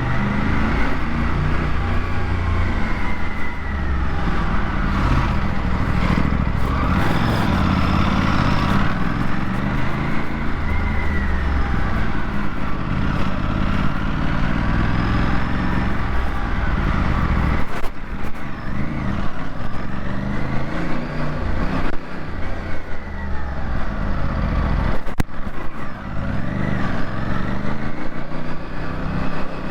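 Aprilia RS457's 457 cc parallel-twin engine under way, its pitch climbing and falling again several times as the throttle is opened and closed.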